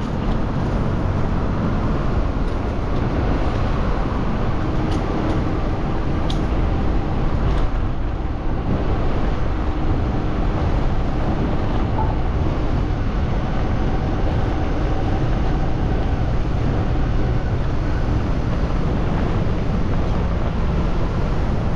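Steady city traffic and road noise, a continuous low rumble with a few faint clicks about five to eight seconds in.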